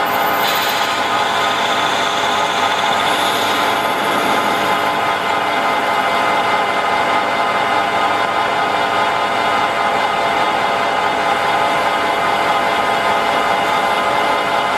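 Metal lathe running under power with a steady hum and whine, while a cutting insert machines the face of a spinning metal flange.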